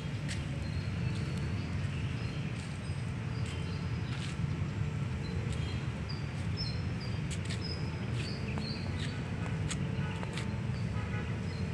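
Small birds chirping in short high notes, mostly in the second half, over a steady low rumble and a few faint clicks.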